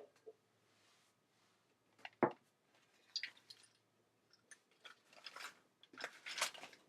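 Handling noises from an Arduino setup and its cables: one sharp knock a couple of seconds in, then three short bouts of scraping and rustling.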